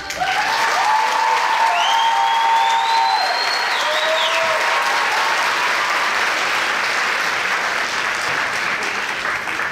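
Theatre audience applauding and cheering, with high shouts and whoops over the clapping in the first few seconds.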